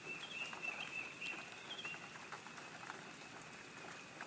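Nestling birds in a dryer duct giving a thin, high, continuous wavering cheep with little chirps on top for the first couple of seconds, then fading. Faint scattered ticks run throughout.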